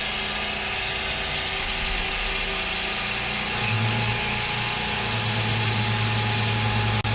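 CNC milling machine running a boring cycle with a long 3/8-inch four-flute carbide end mill: a steady mechanical hiss with a whine over it, and a low steady hum that comes in about halfway through.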